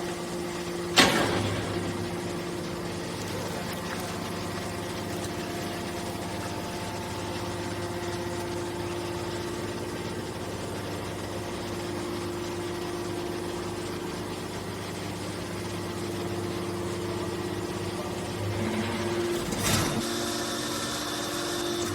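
Hydraulic can baler's motor and pump running with a steady hum, with a sharp knock about a second in. Shortly before the end the hum changes pitch and a short loud clatter follows.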